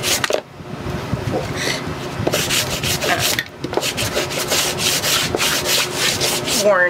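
Sanding block rubbed quickly over a painted chipboard box lid, a fast run of rasping strokes with two short pauses. It is sanding back dried antiquing cream so the brush strokes show through.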